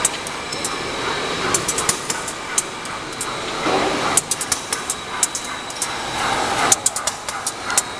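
Pull-up diaper making machine running, a steady mechanical din with frequent sharp clicks and clacks from its moving parts, coming in irregular clusters.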